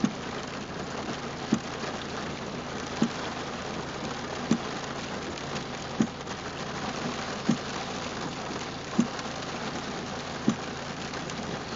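Rain drumming steadily on the car's roof and windscreen, heard from inside the cabin. A short, low thunk comes about every second and a half from the windscreen wipers sweeping.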